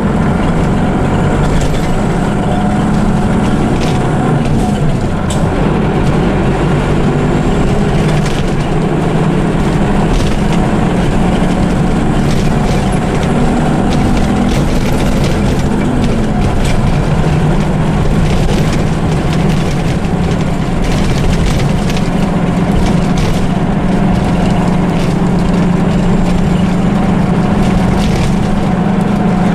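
Scania diesel engine of an Ikarus EAG E94 bus running while under way, a steady low hum heard from inside the passenger cabin, its note shifting slightly about halfway through. Frequent clicks and rattles from the cabin fittings.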